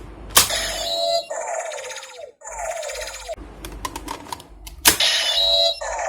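Kamen Rider W Double Driver toy belt playing its electronic transformation sound effects, with falling synthetic sweeps and short tones, and a sharp plastic click about half a second in and another about five seconds in.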